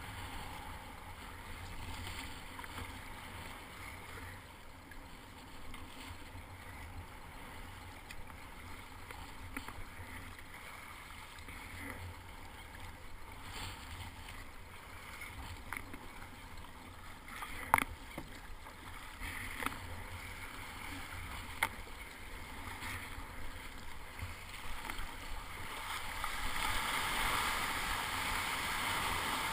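Sea water splashing around a kayak being paddled through surf, with a few sharp knocks about two-thirds of the way through. Near the end the rush of a breaking wave beside the kayak grows louder.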